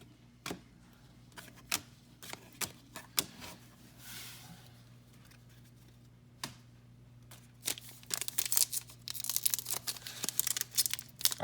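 Trading cards being handled, with scattered light clicks and taps, then from about eight seconds in a dense crinkling and tearing of a foil card-pack wrapper being opened. A faint steady electrical hum lies underneath.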